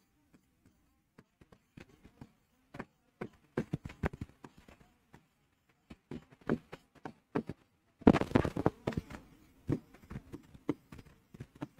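Stylus writing on the screen of an interactive smart board: a run of irregular light taps and clicks as letters are written by hand, with a louder, denser stretch about eight seconds in.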